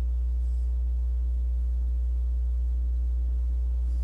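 Steady low electrical mains hum with fainter higher tones stacked above it, unchanging in level.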